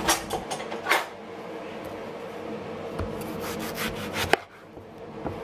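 Fruit handled on a wooden chopping board: rubbing and scraping on the wood with a few knocks, the busiest stretch near the end, over a steady hum.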